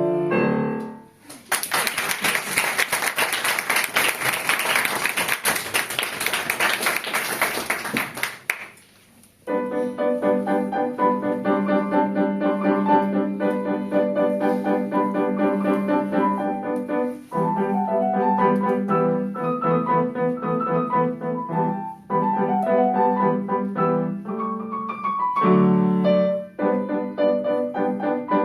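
A piano piece ends on its last notes and the audience applauds for about seven seconds. After a short pause, solo acoustic piano starts the next piece and plays on with chords and runs of notes.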